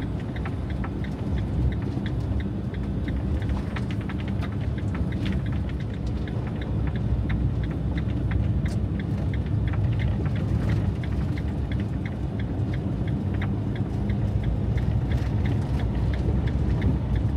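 Fiat Ducato diesel van driving on a snowy road, heard from inside the cabin: a steady low rumble of engine and tyres, with many small irregular ticks over it.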